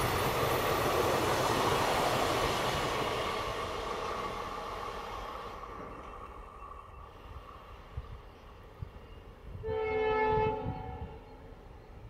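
Passenger train coaches rumbling along the track and fading into the distance over the first several seconds. About ten seconds in, the train's locomotive horn sounds once, a single steady blast of just over a second.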